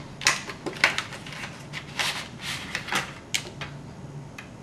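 Memory retail packaging being handled and opened: a string of short plastic-and-cardboard rustles and clacks, about half a dozen, with the last one near the end.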